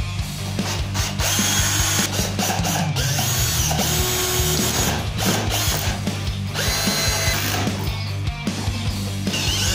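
An 18V HYCHIKA cordless drill-driver driving screws, its motor whining up and down in several short runs with brief pauses between them. Background music plays underneath.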